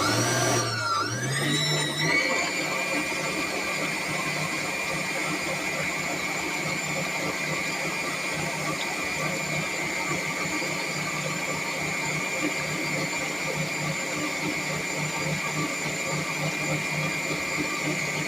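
Electric mixer starting up and beating egg whites. Its motor whine slides down and back up over the first two seconds, then settles into a steady high whine.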